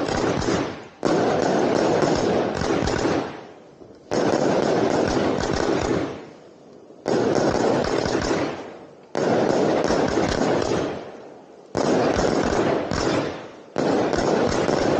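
A ground firework fountain set off very close, shooting in a series of loud rushing bursts of sparks. Each burst starts suddenly and fades over a second or two, about eight in all, one to three seconds apart.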